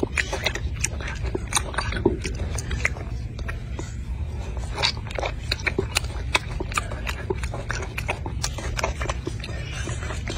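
Golden snub-nosed monkey chewing orange segments close up: a run of irregular sharp chewing clicks, several a second, over a steady low rumble.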